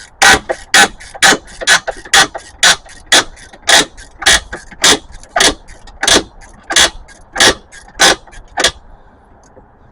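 Socket ratchet clicking as it loosens the rusty nut on a car battery tie-down, about two sharp clicks a second. The clicking stops near the end.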